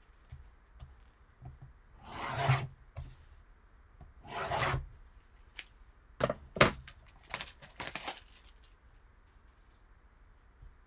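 Trading-card packaging being opened and handled by hand: two longer rubbing, tearing swishes, then a quick run of sharp clicks and taps.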